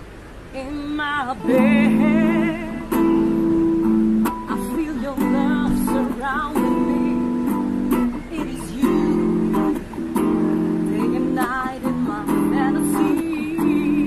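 Acoustic guitar strumming steady chords with a singing voice. The music comes in about a second in.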